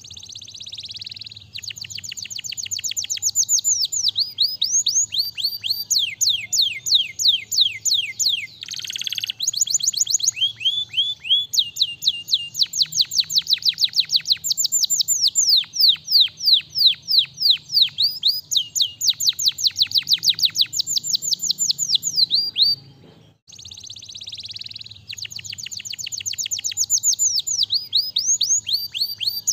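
Domestic canary singing a long song of rapid trills, each a fast run of high, quickly falling notes. The phrases change speed and pitch, with one short break a little past two-thirds of the way through.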